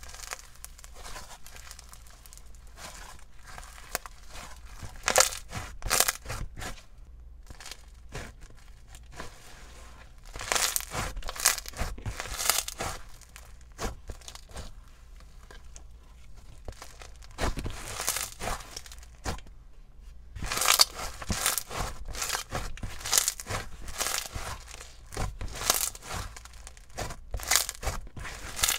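Hands squishing and pressing a foam-bead slime (floam), making crackling and bubble pops as trapped air bursts and the beads crunch. The pops come in irregular clusters of quick bursts, with quieter crackle between.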